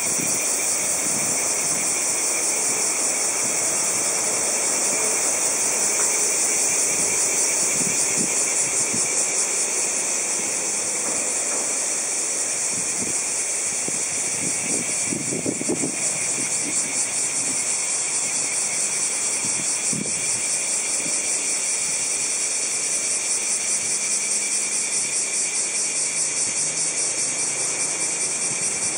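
A chorus of cicadas in the surrounding trees: a loud, steady, high-pitched pulsing buzz.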